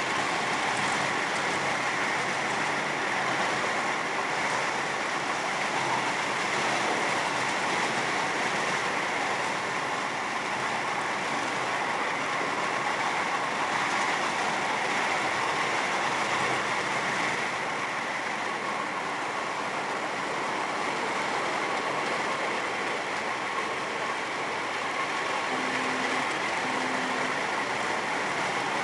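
Miniature park train rolling along its track, heard from a rear passenger car: a steady rolling noise of the cars' wheels on the rails. Two short low tones sound near the end.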